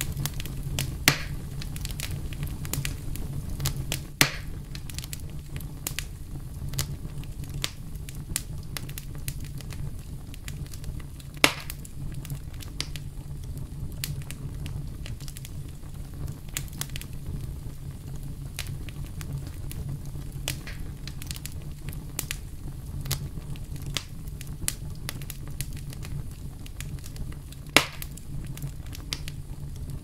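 Wood campfire burning, crackling steadily with many small snaps and four much louder pops: about a second in, around four seconds, near the middle, and near the end. Beneath the snaps runs a steady low rumble.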